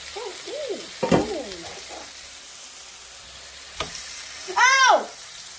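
Diced beef sizzling steadily as it browns in oil in an electric frying pan, with sharp clicks about a second in and near four seconds as metal tongs turn the pieces. A short voice-like sound rises and falls near the end.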